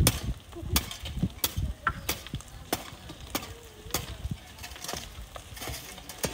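Hand digging tool working sand and stones: sharp clinks at an even pace, about three strikes every two seconds.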